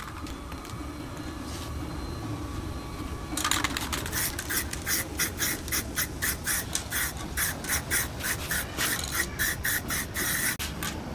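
Aerosol spray paint can with a trigger handle spraying in quick short bursts of hiss, a few a second, starting about three seconds in, as a first coat of black paint goes onto a steel car wheel.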